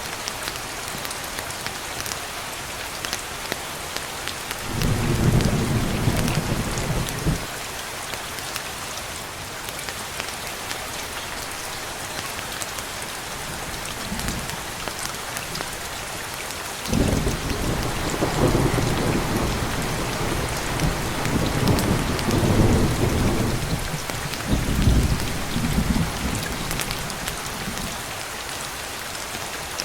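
Steady rain falling, with rolling thunder: a rumble about five seconds in lasting a couple of seconds, and a longer spell of rumbling from just past the middle that goes on for about nine seconds.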